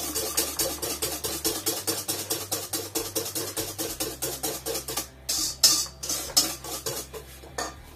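Batter being beaten by hand in a stainless steel bowl, the utensil clicking against the metal in a fast even rhythm of about six strokes a second. After about five seconds the rhythm breaks into a few louder, slower taps.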